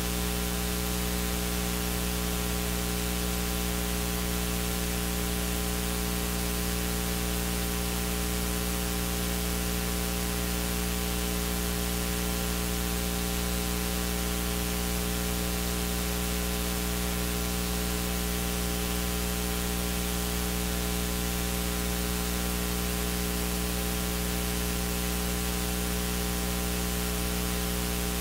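Steady mains hum with a loud hiss of static, unchanging, with no program sound over it: electrical noise in the sound system or recording feed.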